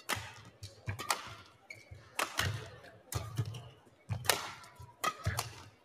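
Badminton rally: rackets strike the shuttlecock with sharp cracks about once a second, with softer thuds of players' feet on the court between the shots.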